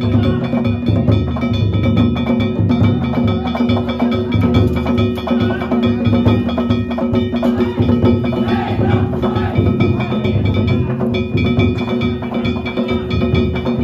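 Danjiri festival narimono: a taiko drum beaten in a fast, unbroken rhythm with small hand-struck gongs clanging over it, their ringing tones held throughout.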